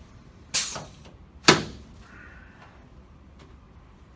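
Two sharp thuds about a second apart, the second louder, from a chiropractor's thrusts on a patient's back during a spinal adjustment on a treatment table.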